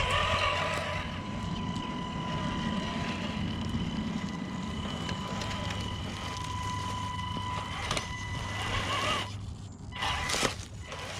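Small electric motor drive of an RC crawler running, a steady whine over a low rumble. Near the end the whine drops out briefly and there is a sharp click.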